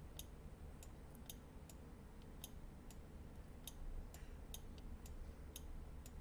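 Faint, irregular clicks of a computer mouse button, about two or three a second, as sculpting strokes are dabbed on one after another, over a low steady hum.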